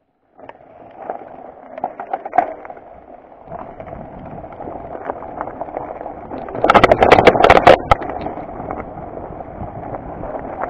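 Mountain bike rolling down a rocky, gravelly trail: tyre noise on loose stones with scattered clicks and knocks as the bike jolts over rocks. About seven seconds in comes a burst of loud, hard rattling over a rough stretch.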